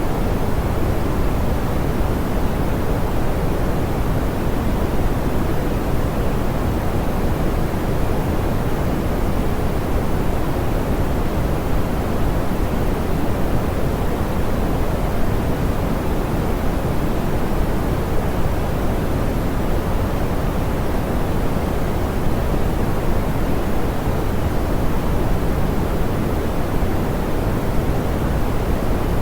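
Steady, soft pink noise: an even hiss, heavier in the low end and rolled off in the highs, with no change.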